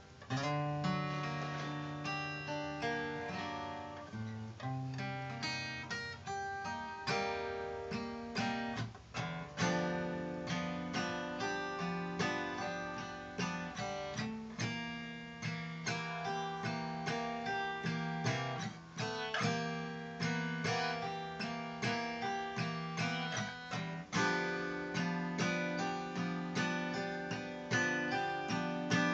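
Acoustic guitar playing a blues intro, mixing picked notes with strummed chords.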